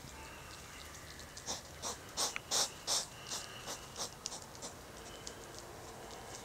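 European hedgehogs snorting: a run of about a dozen short, hissy puffs over roughly three seconds, loudest in the middle, the huffing typical of hedgehog courtship.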